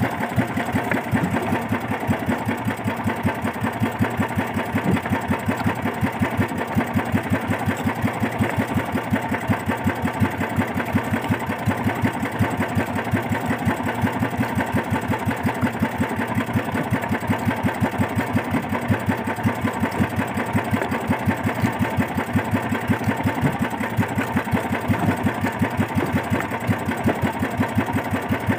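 Small boat engine idling steadily, a fast, even chugging.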